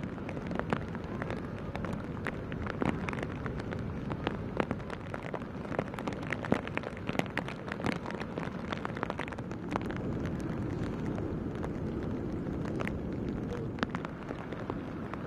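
Heavy rain falling, with many sharp drops ticking on nearby surfaces over a steady low rushing background.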